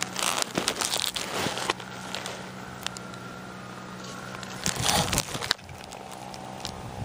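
Crackling, rustling handling noise from a phone being held and moved, with fingers rubbing over the microphone. It comes in two bunches: one at the start and one about five seconds in.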